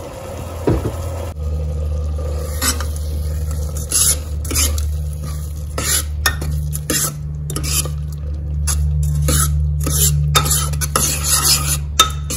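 Metal spoon stirring cooked dal and melting jaggery in an open pressure cooker, scraping and knocking against the pot's sides in irregular strokes. A steady low hum runs underneath from about a second in.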